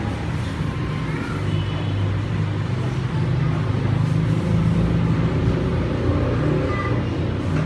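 Water spraying from a hand-held shower hose during a dog's bath, over a steady low machine hum.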